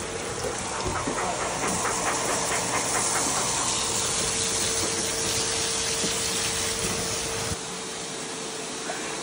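Water spraying from a hand-held hose onto a wet dog in a stainless steel tub, a steady hiss with a faint constant whine underneath. The hiss eases a little about seven and a half seconds in.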